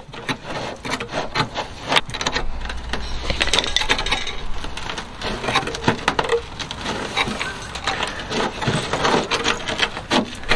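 Rusty steel sill edge and old seam sealer crackling and crunching as gloved fingers pick and break flakes away: a dense, irregular run of small cracks and scrapes. The seam sealer is brittle and basically rotten.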